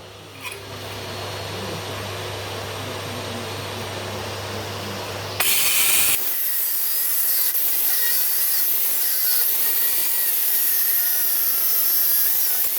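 Power stone-cutting saw cutting into a stone fireplace. About five seconds in it gets suddenly louder as the blade bites into the stone, with a harsh hiss and a whine that wavers in pitch under the load.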